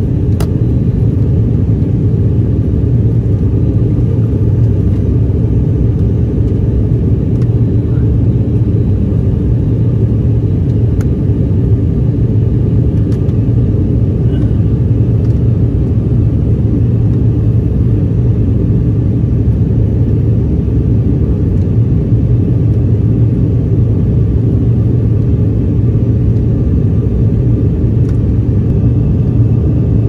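Steady low rumble of an airliner's engines and rushing air, heard inside the passenger cabin, with a few faint clicks.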